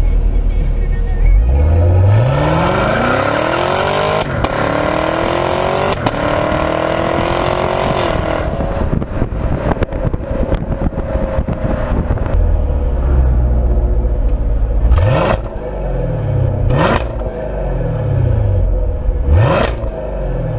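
2020 Camaro SS's 6.2-litre V8 exhaust under hard acceleration: the engine note climbs, drops twice at quick upshifts, and falls away when the driver lifts off about eight seconds in. Near the end come three short, sharp throttle blips.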